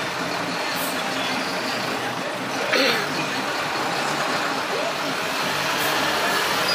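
Steady engine and road noise of congested city traffic, cars idling and creeping along in a jam, with a brief hiss about three seconds in.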